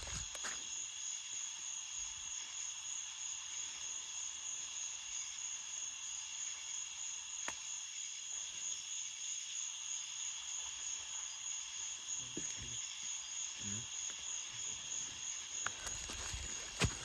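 Steady, high-pitched outdoor insect chorus with a fine pulsing trill, with a few faint rustles and clicks near the end.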